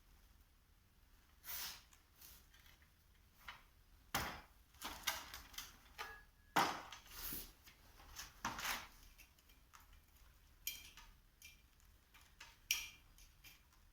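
Irregular clicks, knocks and short scrapes from parts and tools being handled during hydraulic cylinder seal work, the busiest stretch in the middle.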